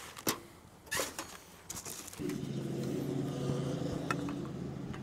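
A few short knocks from junk being handled. Then, about two seconds in, a motor vehicle's engine starts running steadily with an even hum, the loudest sound here.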